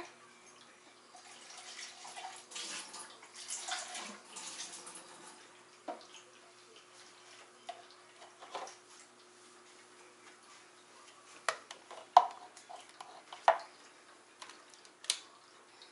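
Kitchen faucet running for a few seconds as a plastic measuring cup is rinsed, then shuts off. After it come scattered light knocks and clicks as the cup and other things are handled on the counter.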